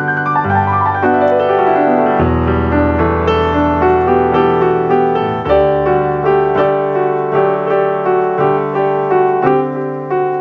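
Background piano music: a melody over held chords, played at an even pace.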